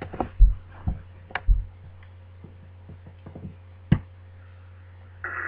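A handful of short knocks and clicks, several in the first second and a half and a sharp one about four seconds in, over a steady low hum; a rough, noisy sound begins just before the end.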